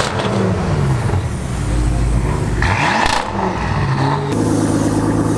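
High-performance car engines revving, the pitch rising and falling several times, then a steady, strong engine note from about four seconds in.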